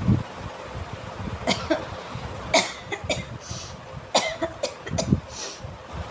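A person sneezing after tickling the inside of the nose with a cotton bud. It comes as a few short, sharp bursts of breath, the loudest about two and a half and about four seconds in.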